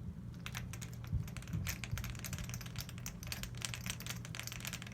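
Rapid, irregular small clicks and light taps of the GSG AK-47 .22LR rifle's parts being handled during disassembly, over a low steady hum.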